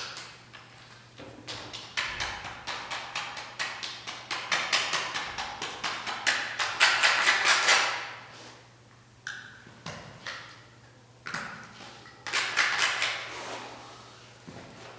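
Pen scratching on a large sheet of paper in quick strokes of about five a second. The strokes come in a long run, then in shorter bursts with pauses between them.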